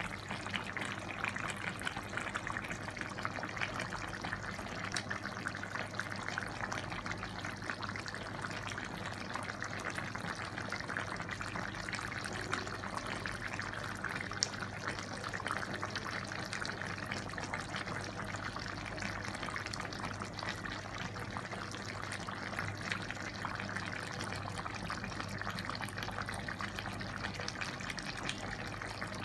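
Chicken afritada stew simmering in a pot on the stove: a steady fine bubbling crackle, with a low steady hum underneath.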